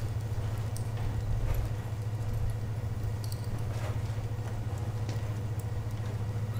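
A steady low hum, with a few faint knocks scattered through it.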